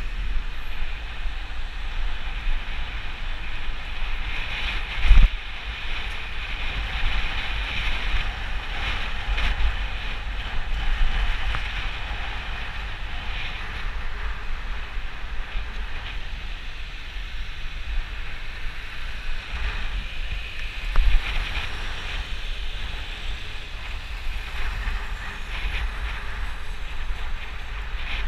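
Wind buffeting the microphone of a bicycle-mounted camera while riding, over steady tyre and road noise with passing traffic. Two short thumps stand out, about five seconds in and again about twenty-one seconds in.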